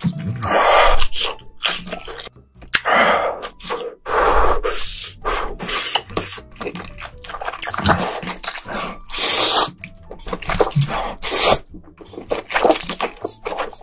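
Ramyeon noodles slurped up with chopsticks, close to the microphones: several long, noisy slurps with wet chewing and mouth clicks in between.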